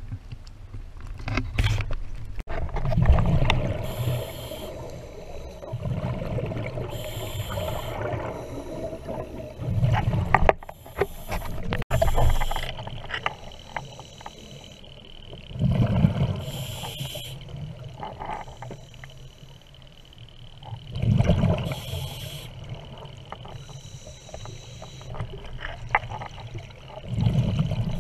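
Scuba diver's breathing through a regulator, heard underwater: a surge of exhaled bubbles rumbles every few seconds.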